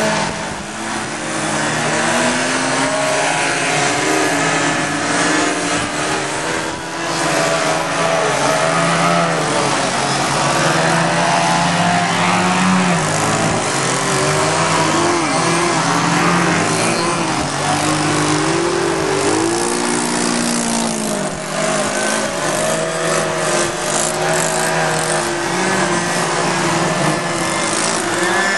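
Engines of radio-controlled 3D aerobatic model airplanes running at varying throttle, their propeller whine rising and falling in pitch over and over as the planes manoeuvre and hang on their propellers. At times several engine tones overlap.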